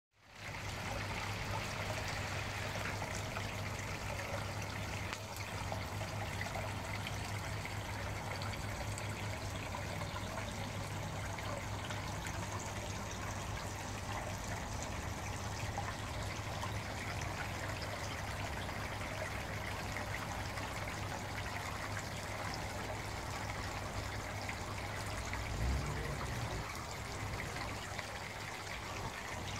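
Water trickling steadily into a fish pond, over a low steady hum. A brief low thump comes near the end.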